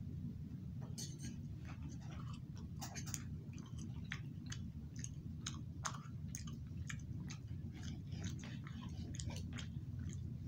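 A man chewing a mouthful of boneless ribeye steak, with many small irregular mouth clicks over a steady low hum.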